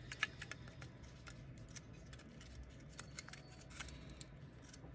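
Faint, scattered small clicks and scrapes of hands and small tools working on the opened parts of a GoPro Hero 9 camera during disassembly.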